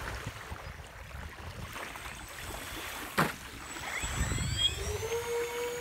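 Twin motors and propellers of a radio-controlled model Canadair water bomber flying in low over a lake. From about four seconds in, their whine rises in pitch and then holds steady, over a background of wind and water, with one sharp click about three seconds in.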